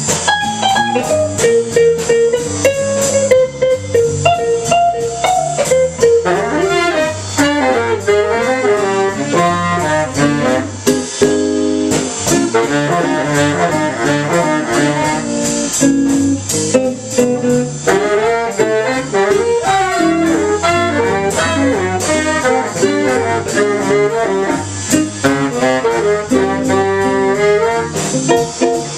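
Small jazz combo playing fast bebop: a horn solos in quick, winding runs over walking bass and a steady cymbal beat.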